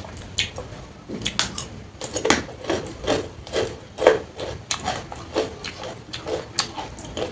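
Close-miked chewing and wet mouth smacks of someone eating watered rice (panta bhat) with side dishes, in a fairly even rhythm of about two a second.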